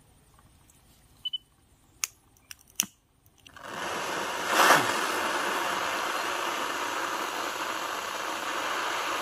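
A few sharp clicks. Then, about three and a half seconds in, the acetylene jet from a homemade calcium-carbide gas generator lights and burns as a steady hissing torch flame, with a brief louder flare just after it catches.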